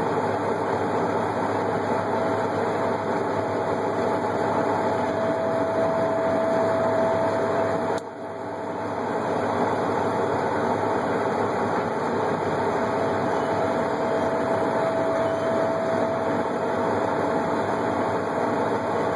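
Peterbilt winch truck's diesel engine running steadily while it powers the winch pulling a motor package up onto a trailer, with a steady whine over the engine noise. The sound briefly dips about eight seconds in, then comes back.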